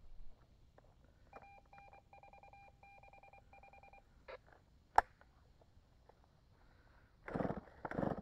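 A run of short electronic beeps, like keypad or device tones, then a single sharp click. Near the end, heavy thuds begin in a steady rhythm.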